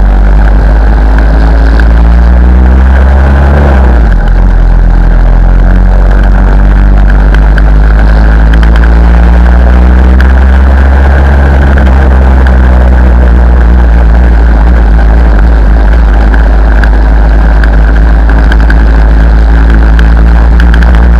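Lambretta chopper's engine running on the move, its pitch rising and falling as it revs through the ride, with a brief drop about four seconds in. A heavy, loud rumble of wind on the microphone runs underneath.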